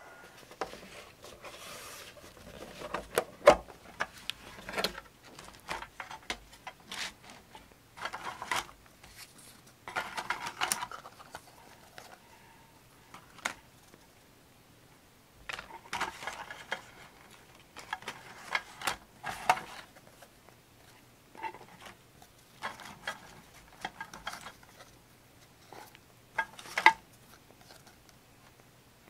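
Hands handling paper and journaling supplies: irregular taps, rustles and short scraping rubs that come in clusters, with quieter pauses between them.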